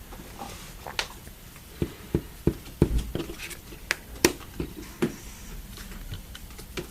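Trading cards being handled and set down on a table: a dozen or so short, sharp taps and clicks at irregular intervals, the loudest about three seconds in.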